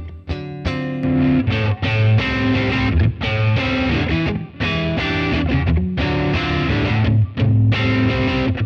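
Electric guitar played through a J Rockett "The Dude" overdrive pedal, a Dumble Overdrive Special-style circuit: a run of mildly overdriven notes and chords with short gaps between phrases.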